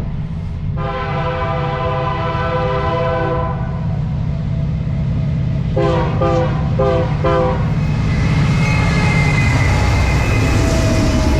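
Diesel locomotive air horn sounding one long blast, then a quick series of short blasts, over the steady rumble of a train on the rails. The rumble grows louder near the end as the train draws closer, with a thin metallic ringing from the wheels and rails.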